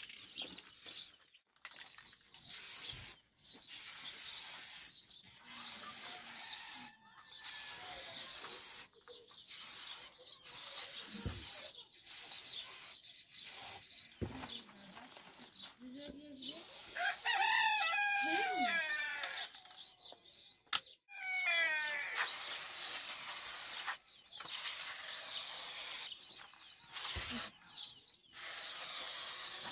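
Aerosol spray-paint can hissing in repeated bursts of one to two seconds, with short pauses between them. A bird chirps a few times a little past the middle.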